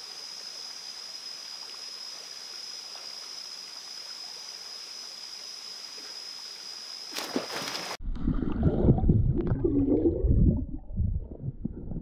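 Jungle stream ambience: a steady hiss of flowing water with a steady high-pitched drone, typical of forest insects. About eight seconds in, it changes to the muffled, uneven low rumbling and gurgling of water heard from a camera held underwater.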